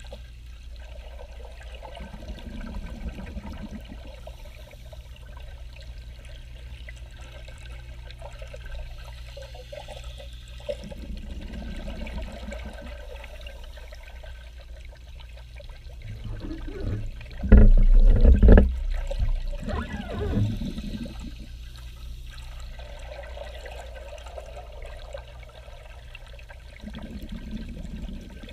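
Scuba diver breathing through a regulator, heard underwater: slow breaths with gurgling bursts of exhaled bubbles about every eight seconds, the loudest about eighteen seconds in, over a steady low hum.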